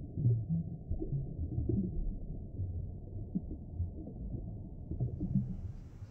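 A deep, muffled intro sound under the title card: a low rumble with short low pitched notes, with nothing above the low range, fading out about five seconds in.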